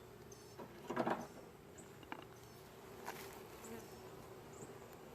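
Honey bees buzzing at a hive in a steady low hum, with a few light knocks, the loudest about a second in.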